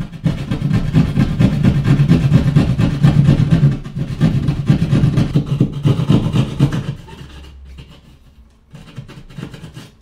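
Hand drywall jab saw cutting through drywall with fast back-and-forth strokes. The sawing is loud for about seven seconds, then eases to a few lighter strokes near the end as the cutout comes free.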